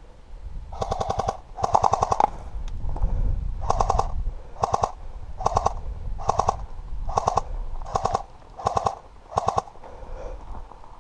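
Airsoft gun firing on full auto in bursts, each a fast rattle of shots: two longer bursts of about half a second near the start, then eight short bursts spaced a little under a second apart.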